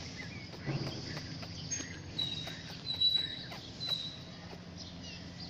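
Street ambience with three short, high, steady chirps about two to four seconds in, a few fainter gliding calls earlier, and scattered light taps.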